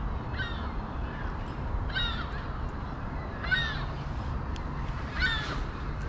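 A bird calls four times, short harsh cries about every second and a half, over a steady low rumble.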